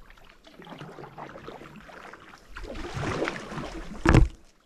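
Kayak moving on the water: a low swishing hiss of water around the hull that swells about three seconds in, then a single sharp thump near the end.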